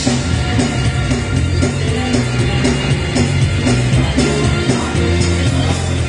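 Church gospel choir singing with a live band of keyboard and drum kit, with a steady bass line and a regular beat.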